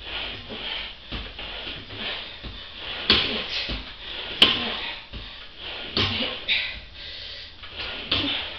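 Kneeling ab exercise machine clacking and sliding with each repetition of an ab exercise, a short knock or scrape every second or so. Two sharp clacks stand out, about three seconds in and about four and a half seconds in.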